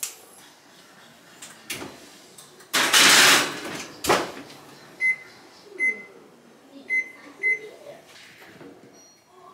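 A metal sheet pan slid into a gas range's oven with a loud scrape, and the oven door shut with a knock about a second later. Then four short electronic beeps from the range's control panel as its buttons are pressed.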